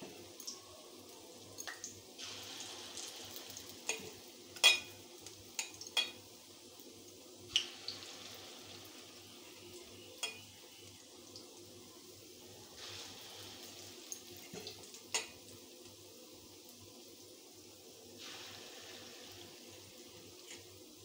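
Moong dal batter fritters deep-frying in hot oil in a kadhai: a steady sizzle broken by a handful of sharp cracks, the loudest about four and a half seconds in. The sizzle swells three times as fresh dollops of batter go into the oil.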